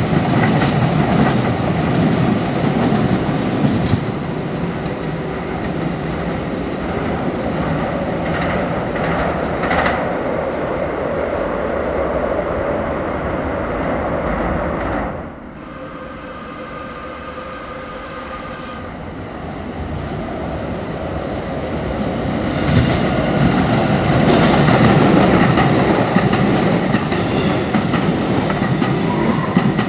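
DART Kinkisharyo light rail trains running on the tracks, their wheels rumbling and clicking over the rail joints. The sound grows louder, with rapid clicks, near the end as a train runs along the platform.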